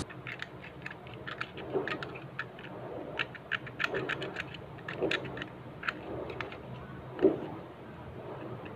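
Irregular small clicks, taps and scrapes of hands handling and cleaning the door lock switch of an LG front-loading washing machine, with a few duller knocks, the loudest about seven seconds in.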